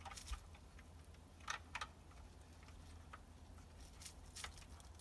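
Faint, scattered clicks and light taps of plastic LEGO pieces being handled, about half a dozen over a few seconds.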